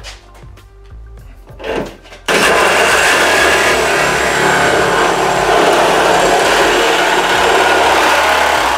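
Reciprocating saw cutting through the steel rear roof pillar of an Audi A6 estate body shell, starting abruptly about two seconds in and then running steadily.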